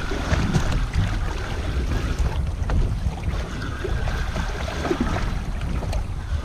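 Wind rumbling on the microphone, with choppy water lapping around a small boat.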